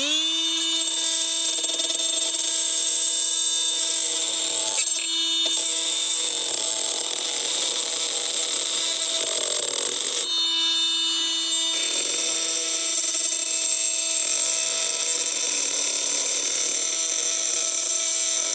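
Flex 24-volt oscillating multi-tool with a metal-cutting blade winding up quickly and then running at a steady high buzz as it cuts an old nail sticking out of a wooden 6x6. The buzz wavers briefly about five seconds in and again around ten seconds in as the blade bites.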